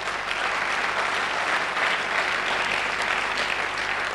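Audience applauding in a hall, holding steady and then tapering off near the end.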